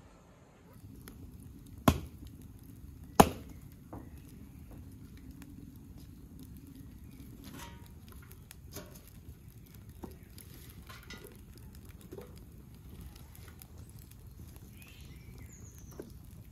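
Wood fire burning in a cauldron stove: a steady low rumble of flames with scattered crackles and pops. Two loud sharp knocks come about two and three seconds in.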